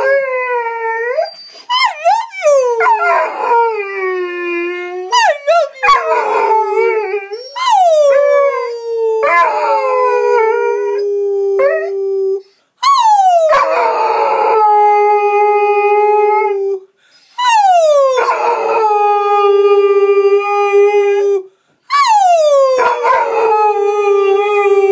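Five-month-old Rhodesian Ridgeback puppy howling in a run of howls. Each howl starts high and slides down to a held lower note. The first several are short and broken, and the last three are held for about four seconds each, with short silent breaths between them.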